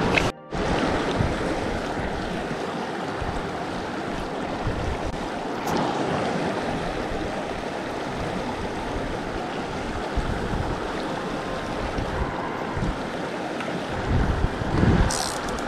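Shallow mountain creek running over rocks: a steady rush of water. Gusts of wind buffet the microphone, strongest near the end.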